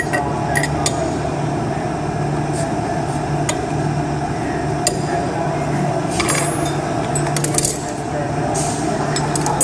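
Hand tools clinking against metal engine fittings, a few short sharp clicks scattered through, over a steady background hum.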